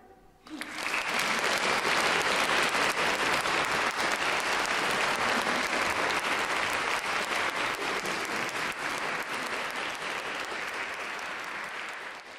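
Audience applause breaks out about half a second in, right after a choir's final chord dies away, and holds steady before thinning slightly near the end.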